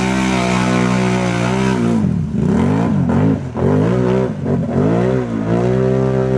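ATV engine running at high revs as it churns through deep mud. About two seconds in it is revved up and down repeatedly, then held high and steady again.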